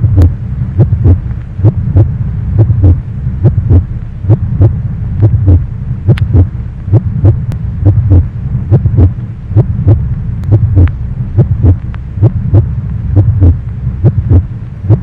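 A heartbeat sound effect: regular low double-beat thumps, about one and a half a second, over a steady low hum.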